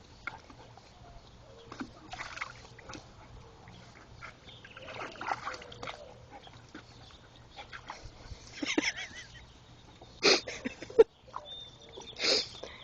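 Dog pawing and digging in a barrel of water, splashing in irregular bursts that grow louder toward the end, with one sharp hit near the end.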